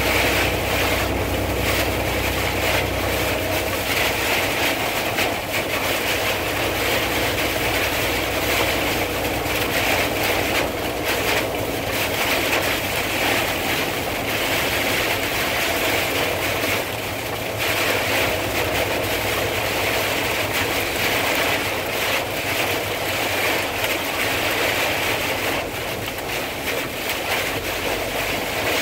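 Heavy storm rain and wind battering a car, heard from inside the cabin as a steady loud rushing noise. A low hum underneath stops about three seconds in.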